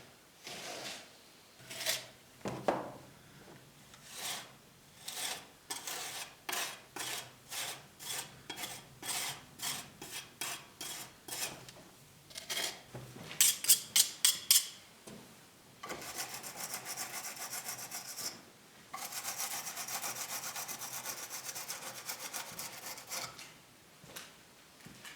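Rubbing strokes of an abrasive tool worked back and forth by hand, about two a second, then a short burst of quicker, louder strokes, then two longer stretches of fast continuous rubbing.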